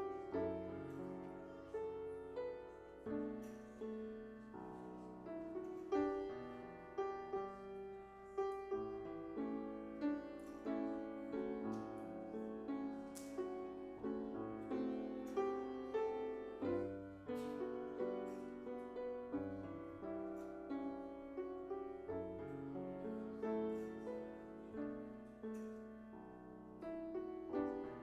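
Solo piano playing instrumental music: a continuous stream of struck notes and chords that ring and fade.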